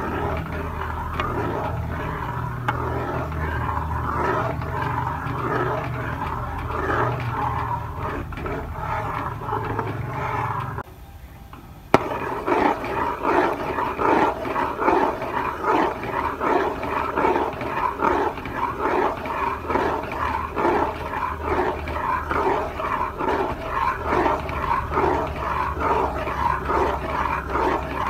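Metal spatula stirring and scraping a thin egg halwa mixture in a steel pan, in regular strokes about twice a second, over a steady low hum from the burner. The sound breaks off briefly about eleven seconds in, then the stirring goes on.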